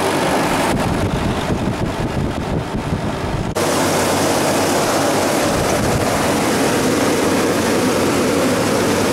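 Refrigeration condensing unit running steadily, its rebuilt compressor and condenser fan giving a constant mechanical hum. About three and a half seconds in the sound abruptly becomes louder and brighter and then holds steady.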